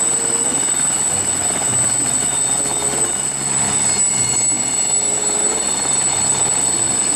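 Helicopter sound effect: a steady noisy whir of rotor and engine with a high whine over it.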